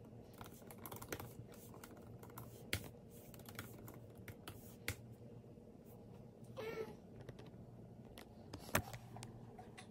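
Typing on a MacBook Air's butterfly-switch keyboard: light, irregular key taps with a few sharper clicks. About two-thirds of the way through there is a brief high-pitched squeaky cry.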